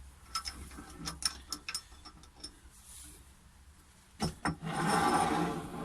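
Parts being handled at a wood lathe: a run of small sharp clicks and knocks, then two heavier knocks about four seconds in and a rough rattling scrape lasting about a second.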